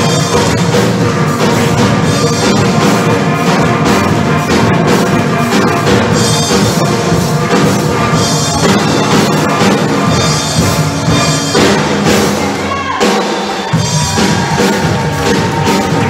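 A steel orchestra playing live: steel pans with bass pans and a drum kit. The low end drops out briefly about thirteen seconds in, then the full band comes back.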